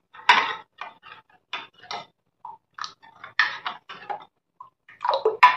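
Steel spoon scraping and clinking against a glass bowl while thin batter is stirred, in quick irregular strokes, with a louder clink near the end.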